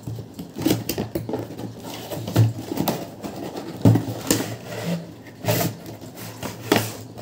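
Cardboard packaging being handled and opened by hand: irregular rustling, scraping and small knocks as an inner box is pulled out.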